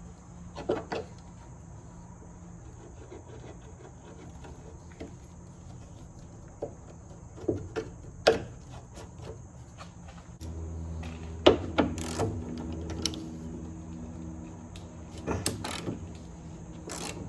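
Hand tools clinking and knocking on metal in irregular taps and clanks while working at the fuel tank drain plug. About ten seconds in, a steady low hum starts and runs on under the clinks.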